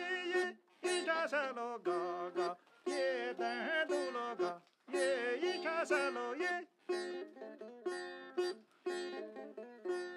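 Nu dabiya, a traditional plucked lute, playing a folk tune in short phrases, with a wavering voice singing along in the first half.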